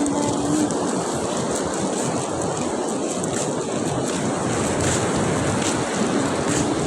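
Sea surf washing onto the beach, a steady rushing with wind buffeting the microphone. A faint short tone sounds at the start and again near the end.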